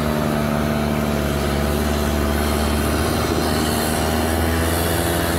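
Off-road 4x4 SUV's engine running at a steady low speed as it crawls over rough ground, an even, unchanging drone.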